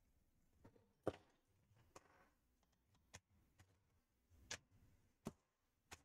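About seven light, sharp clicks and taps, spread roughly a second apart, as a laptop's plastic bottom cover is handled and fitted back on.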